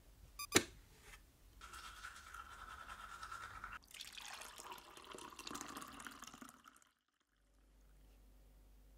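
The last beeps of a Philips digital alarm clock and a sharp click about half a second in, then a steady buzz for about two seconds. After that, hot water is poured from a Sunbeam electric kettle into a ceramic mug for about three seconds and stops abruptly.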